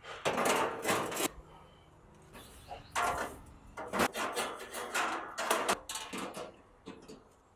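Paper towel rubbing canola oil over gas grill grates: a series of scraping, rubbing strokes in bursts of up to about a second, with short pauses between them.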